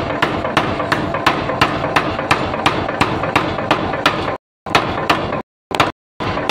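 Power hammer's ram striking a red-hot steel bar on its anvil die in a steady run of blows, about four a second, over the machine's running noise. From a little past four seconds in, the sound cuts out abruptly and comes back several times.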